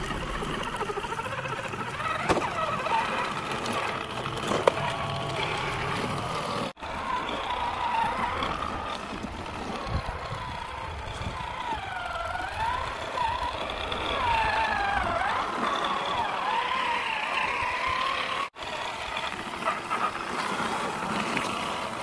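Small plastic toy trucks driving through sand, with a whirring whose pitch wavers up and down over rolling, scraping noise.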